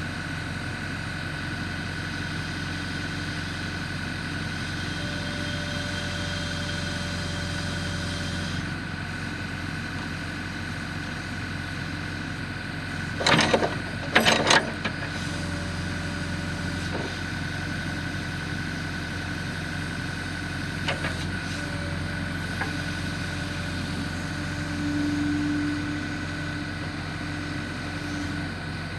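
Backhoe engine running steadily while a strapped log is lifted and moved. A few loud sharp knocks come about halfway through, and the engine note rises for a couple of seconds near the end.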